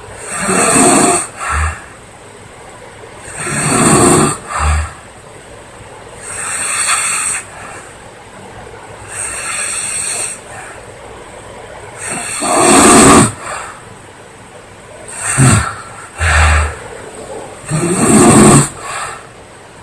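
A young woman snoring loudly and raspingly, about seven snores a few seconds apart. Several of them are followed by a brief, shorter second sound.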